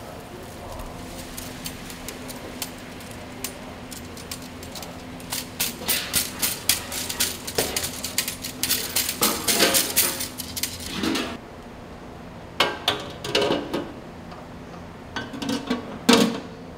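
Rapid clinking and clattering of hard objects, dense through the middle, then a few shorter bursts of clicks near the end, over a faint steady hum.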